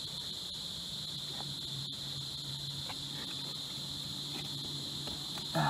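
Steady chorus of crickets, a continuous high-pitched trill.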